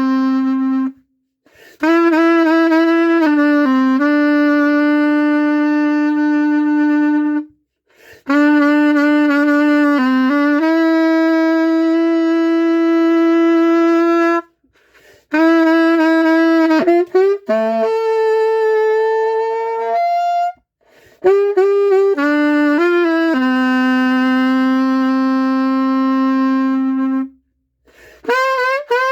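SML saxophone, not yet repaired, played solo: a slow melody in long held notes, the phrases broken by short breath pauses about every six to seven seconds.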